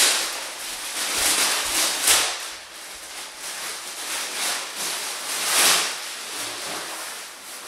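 Clear plastic packaging bag crinkling and rustling as it is pulled open and a jacket is drawn out of it, in several loud swishes: one at the start, one about two seconds in and one about five and a half seconds in.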